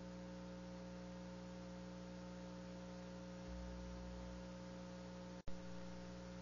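Steady electrical hum and hiss on the audio line, holding several fixed tones. About five and a half seconds in, the sound drops out for an instant with a sharp click.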